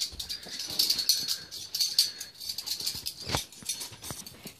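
Rapid, irregular clicking and clacking of a butterfly knife being flipped, its handles swinging open and shut.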